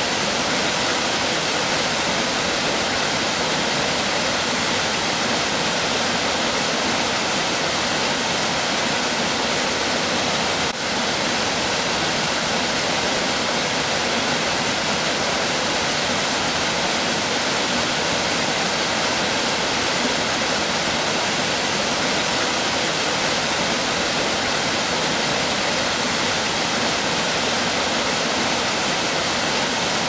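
Steady rushing of a waterfall and white-water mountain stream cascading over rocks, with a brief dip about eleven seconds in.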